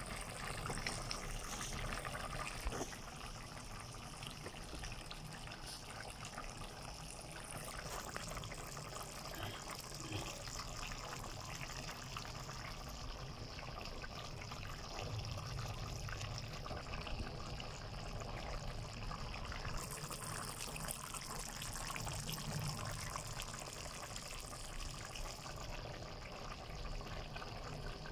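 Chicken pochero stew simmering in a pan: the sauce bubbles steadily with many small pops.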